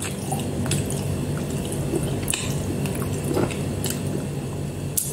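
A person chewing and slurping hot instant noodle soup from a metal spoon, with a few sharp clicks scattered through, over a steady low hum.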